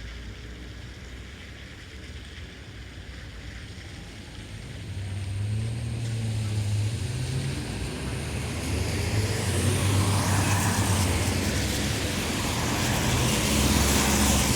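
Road traffic on a wet road: after a few quieter seconds, vehicles pass with engine hum and the hiss of tyres on wet asphalt, growing louder from about five seconds in and swelling again near the end.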